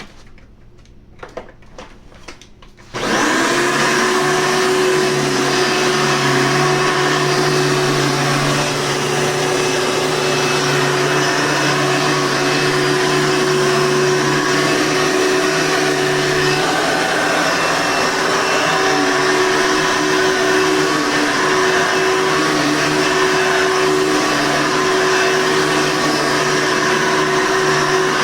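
Hoover Legacy 740 upright vacuum cleaner: a few light clicks, then about three seconds in its motor starts suddenly and runs steadily with a constant hum and tone.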